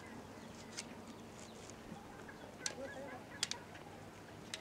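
A few light, sharp taps over a faint background, with two close together about three and a half seconds in.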